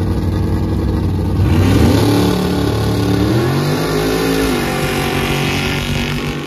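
Mud drag pickup's engine launching at full throttle: it runs steadily at the line, its revs climb sharply about a second and a half in, then the pitch sweeps down and fades as the truck pulls away down the mud pit.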